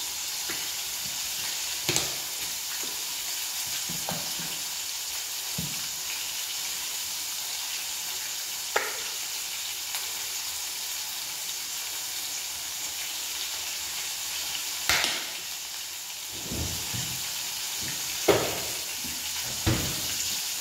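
Hot oil sizzling steadily as food fries in a pan, with a few sharp knocks and clicks scattered through.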